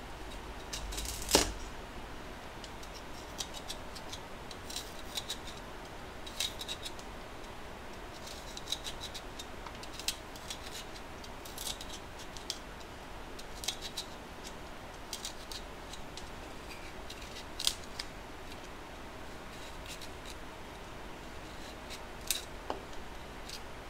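Kitchen knife cutting through crisp daikon radish leaf stems and trimming the radish's crown: a string of short, sharp, irregular snicks, with one louder knock about a second in.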